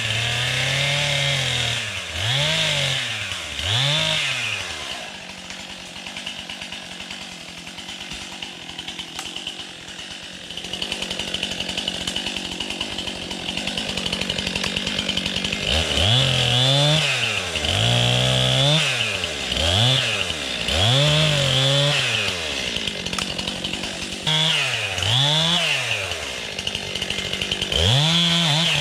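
Chainsaw engine revved up and let back down over and over, about once a second, with a stretch of steadier low running in the middle.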